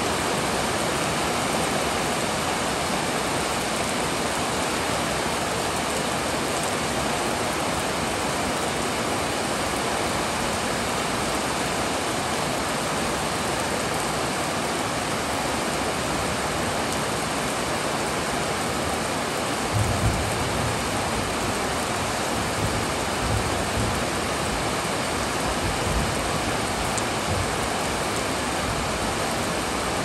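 Heavy rain pouring steadily. A few short low rumbles come through about two-thirds of the way in.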